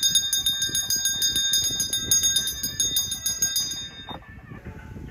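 Small brass puja hand bell rung rapidly and continuously, its bright metallic ringing stopping a little under four seconds in.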